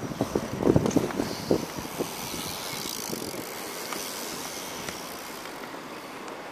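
Inline skates knocking and clacking on a concrete skatepark box during the first second and a half as the skater steps up onto its edge. After that a steady rushing noise swells and fades over the next few seconds.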